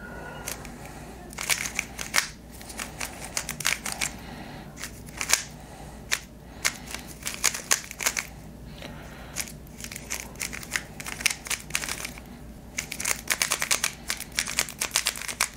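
A freshly lubricated Moyu YS3 M ball-core 3x3 speed cube being turned fast: irregular bursts of quick plastic clicks and clacks as its layers snap round.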